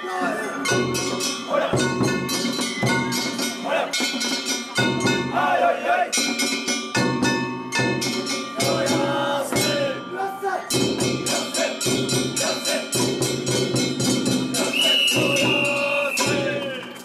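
Japanese festival float music: repeated metallic clanging and percussion strikes over held tones, with men's voices calling in the crowd and a high note held near the end.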